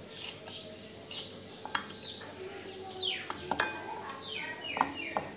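Small birds chirping, a run of quick, sharply falling high calls that come thickest about three seconds in, with a few light clinks of steel kitchenware.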